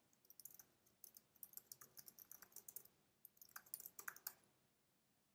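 Faint typing on a computer keyboard: a run of quick keystrokes, a short pause, then a few more keystrokes.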